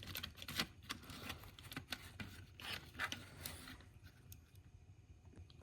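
Faint clicks and rubbing of small model locomotive parts being handled while the model is taken apart, with most of the sounds in the first few seconds.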